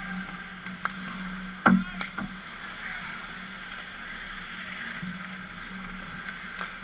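A few sharp knocks over a steady low hum. The loudest knock comes a little under two seconds in, with a short ringing tail, among a few fainter clicks.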